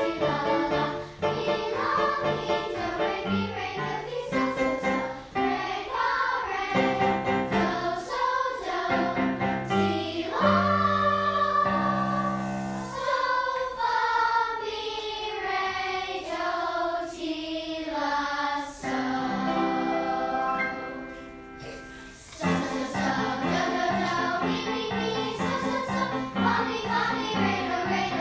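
A galop tune with voices singing along in a choir, the melody set to solfège syllables (do, re, mi…); the music drops to a brief quieter passage about three quarters of the way through, then comes back in full.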